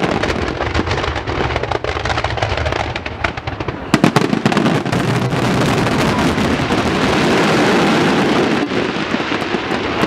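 Fireworks display: dense, rapid crackling and popping, with a cluster of sharp bangs about four seconds in.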